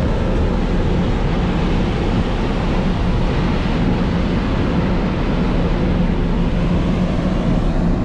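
Steady drone of a ferry under way: a constant low engine hum under an even rushing of wind and water.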